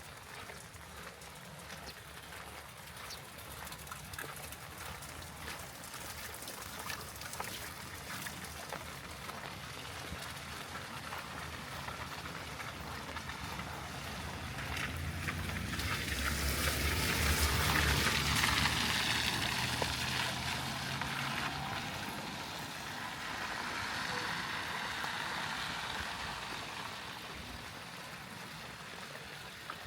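Steady rain and running water. Around the middle it swells into a louder rush with a low rumble, then fades back.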